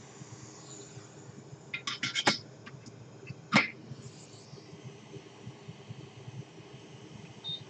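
Hot air rework station blowing steadily on the PS4 HDMI port's solder, a faint hum and hiss. A quick cluster of sharp clicks comes about two seconds in, a single loud click about three and a half seconds in, and a short high beep near the end.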